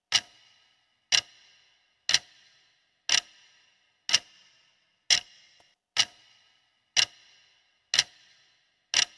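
Countdown-timer sound effect of clock ticks, one each second, ten in all. Each tick is a sharp click with a short ringing tail.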